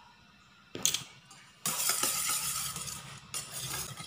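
A few sharp knocks on metal about a second in, then a fork beating egg yolks against the inside of a stainless steel bowl, a fast clinking rattle that starts about halfway through.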